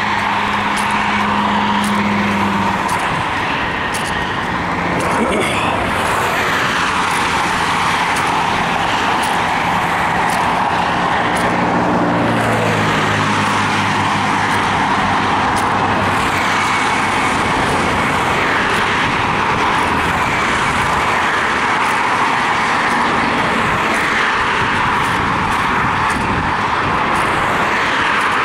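Steady road and wind noise of a car travelling at highway speed, with a low engine hum that comes and goes.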